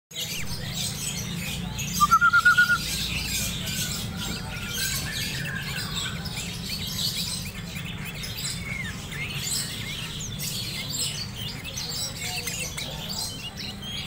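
Sooty-headed bulbul (kutilang) singing. About two seconds in comes a loud run of about six quick whistled notes, with many short high chirps throughout over a steady low hum.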